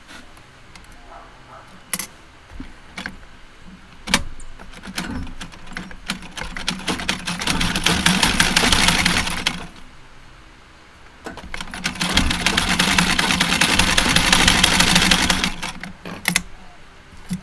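Straight-stitch sewing machine stitching a seam through fabric in two runs, each a fast, even clatter of a few seconds, with a pause of a second or two between them. A few sharp clicks come before the first run and after the second.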